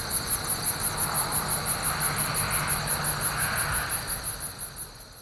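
Crickets chirping in a fast, even pulse of about six chirps a second over a background of traffic noise, whose hiss and low rumble swell briefly mid-way. The whole sound fades out over the last second or so.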